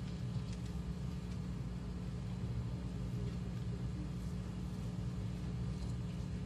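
Steady low hum of room background noise, with a few faint ticks.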